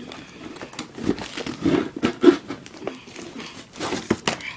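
Cardboard packaging rustling and scraping, with a few light knocks, as a laptop is lifted out of its shipping box.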